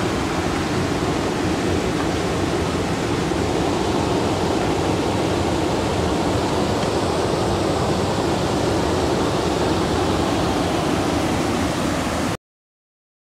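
Steady rush of river water pouring over a low weir, cutting off abruptly near the end.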